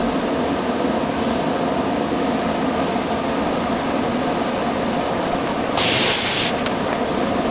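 Workshop power tool running steadily, with a short burst of hiss about six seconds in.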